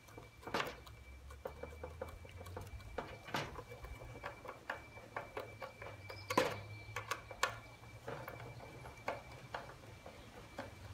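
Hand screwdriver driving a wood screw into a pine board until it is snug: faint, irregular clicks as the screw turns, with one louder click about six seconds in.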